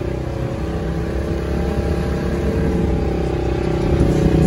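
ATV engine running steadily, a little louder near the end.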